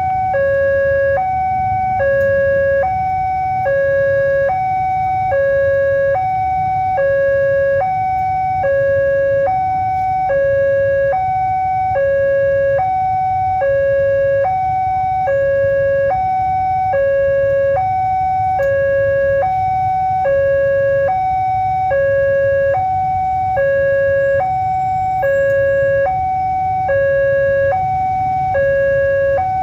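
Railway level-crossing warning alarm sounding: an electronic two-tone signal alternating steadily between a higher and a lower note, each held just under a second. It warns that a train is approaching the crossing.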